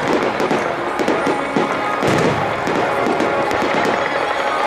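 Fireworks display: aerial shells bursting and crackling in quick succession, with music playing loudly over them.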